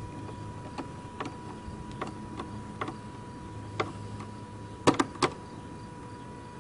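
Scattered sharp metallic clicks and taps from a hose clamp being tightened with a screwdriver onto a brass hose fitting, with the loudest cluster of three about five seconds in. A faint steady hum lies under them.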